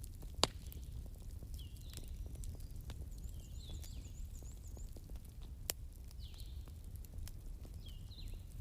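Bonfire crackling over a low rumble, with occasional sharp pops, the loudest about half a second in and another near six seconds. Birds chirp throughout, with short high calls and a brief fast trill near the middle.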